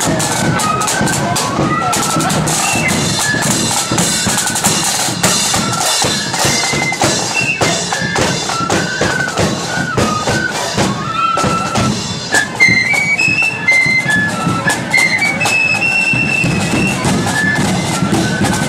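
Marching flute band playing: flutes carry a quick stepping melody over side drums and a bass drum beat.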